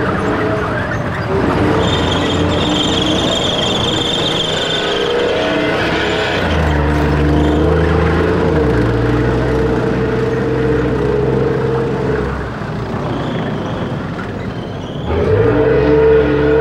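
Tank engine running as a tracked tank moves, with a high squeal over the first few seconds. The engine note drops in two steps midway, and about fifteen seconds in it revs up sharply as the tank pulls away.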